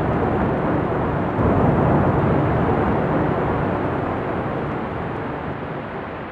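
Rumble of a tall brick chimney collapsing after an explosive demolition charge: a loud, deep rumbling that surges again about a second and a half in as the stack hits the ground, then slowly fades.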